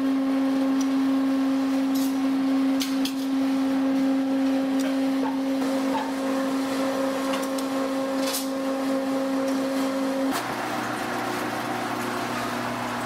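Noodle-cutting machine running with a steady electric hum and scattered light clicks. About ten seconds in, the sound changes abruptly to a lower, rougher machine hum from the dough-sheeting area.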